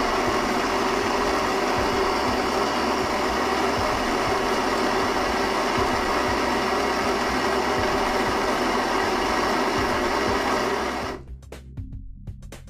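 Baratza Vario burr grinder running, its belt-driven DC motor turning 54 mm ceramic burrs that grind coffee beans fine for espresso: a steady, even grinding noise that stops abruptly near the end.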